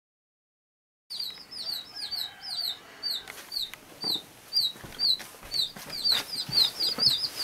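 Day-old bantam chicks peeping: short, high cheeps that fall in pitch, starting about a second in and repeating a few times a second, coming faster near the end, with a few soft knocks of handling.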